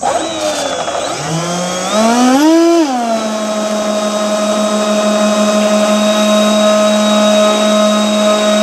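A radio-controlled F/A-18F Super Hornet model jet's engines starting up: a whine that comes in suddenly and climbs in pitch for about three seconds, then drops back and settles into a steady idle hum.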